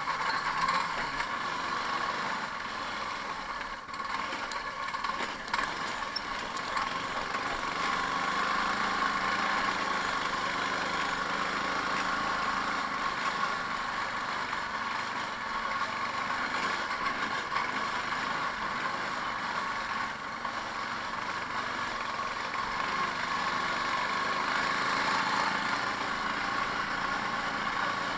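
Fox go-kart's small engine running steadily under the driver as the kart is driven along a rough dirt trail, with the metal frame rattling over the bumps.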